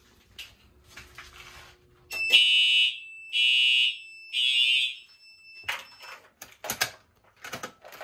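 Simplex fire alarm horn-strobe sounding three short blasts about a second apart. This is the alarm system's audible walk-test response to a pull station being pulled. A click comes just before the horn, and a few knocks follow as the pull station is handled.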